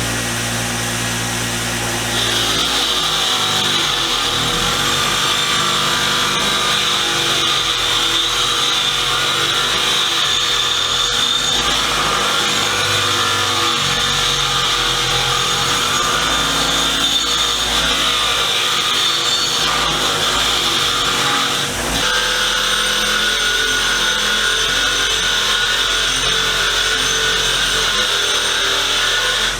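Power-tool wire wheel stripping paint from vise parts: a steady, loud whirring hiss, with a brief break about three-quarters of the way through.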